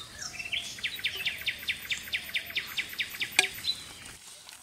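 A bird calling outdoors: a rapid, even run of short high chirps, about six a second, lasting about three seconds. A sharp knock comes right at the start and another about three and a half seconds in.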